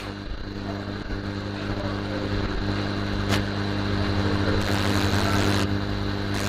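Hot air rework station blowing steadily while desoldering a MOSFET: a hum under a rushing hiss that grows brighter about four and a half seconds in. A single sharp click comes about three seconds in.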